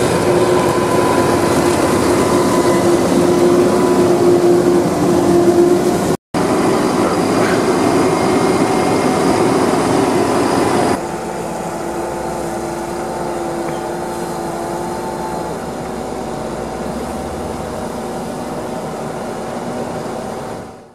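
Tractor and forage wagon running steadily, with an engine whine over the noise: a JCB Fastrac 4220 pulling a Krone ZX forage wagon. The sound breaks off for a moment about six seconds in, is quieter from about eleven seconds on, and fades out at the end.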